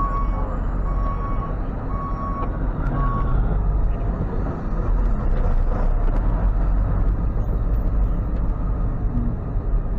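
Tow truck backing up: its reversing alarm beeps about once a second and stops after about three seconds, over the steady running of the truck's engine, which grows a little louder about halfway through.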